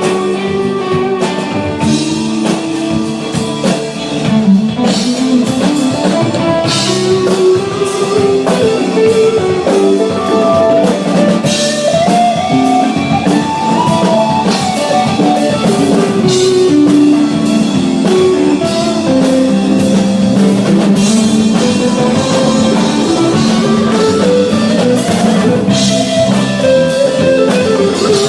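A live rock band playing an instrumental passage with no vocals, led by guitar over a drum kit.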